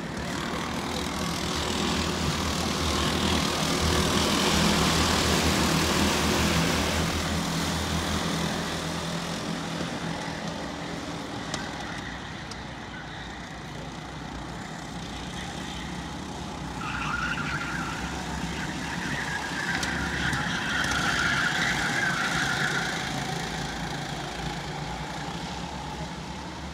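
A pack of 270cc racing karts lapping the circuit, their single-cylinder engines making a continuous buzzing drone. The drone swells twice as the karts come past nearer the camera, the second time with a higher-pitched whine of engines at high revs.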